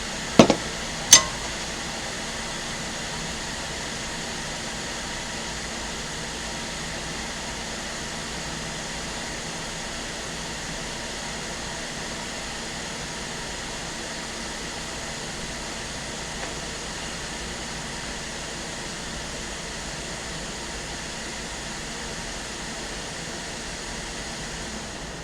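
Steady fan-like whirring noise on the workbench, with two sharp clicks about half a second and a second in.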